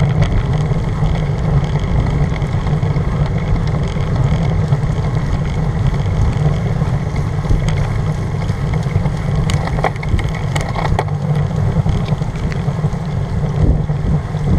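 Wind rumbling steadily on the microphone of a bike-mounted camera as a road bicycle rides on a rain-soaked road, with the hiss of tyres on wet tarmac. A few sharp ticks come about ten seconds in.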